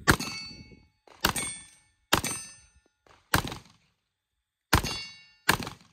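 Six shots from an FN FNX-45 Tactical pistol firing .45 ACP at a slow, uneven pace, about a second apart. Each shot is followed by a brief metallic ring from a steel target being hit.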